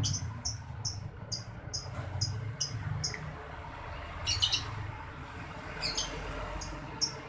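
Rhythmic high chirping, about two to three short chirps a second, over a low rumble, with a brief metallic clink about four and a half seconds in.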